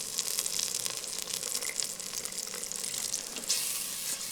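Onion, tomato and spice masala sizzling in oil in a clay pot, with sharp crackling pops through a steady hiss; the sizzle swells louder about three and a half seconds in.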